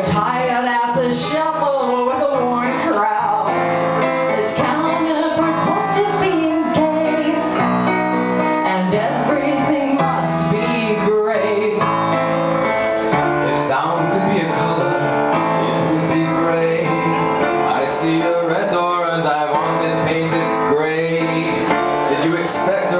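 A live band plays a song with singing over the instruments, loud and steady throughout, with occasional cymbal crashes.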